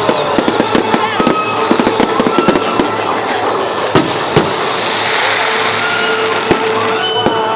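Fireworks crackling and popping in quick, dense strings, with a few louder bangs about four seconds in. Music plays over the top.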